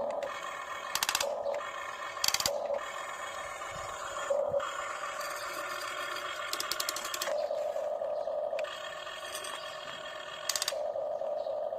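Radio-controlled model excavator running: a steady electric motor whine whose tone shifts every few seconds as it is worked, broken by short rattling bursts four times.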